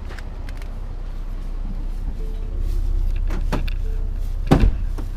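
Truck running with a steady low rumble, with a few short knocks and a louder thump about four and a half seconds in.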